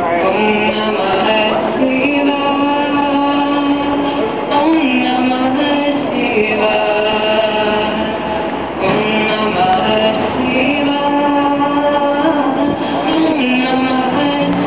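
A street musician's live music with singing, held notes moving step by step from one pitch to the next.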